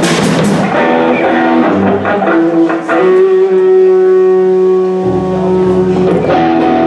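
A band playing: drum hits at the start, then guitar notes ringing out into a long held note, with a bass line coming in about five seconds in and the drums returning near the end.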